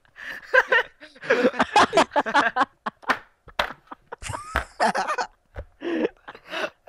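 A group of young people laughing and talking over one another, with no clear words, and a few sharp knocks near the middle.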